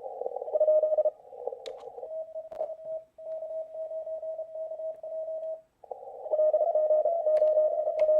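Morse code (CW) on a ham radio: a single mid-pitched tone keyed on and off in dits and dahs. At the start and again from about six seconds in it sits in band hiss squeezed through a narrow CW filter. A few sharp laptop key clicks come through on top.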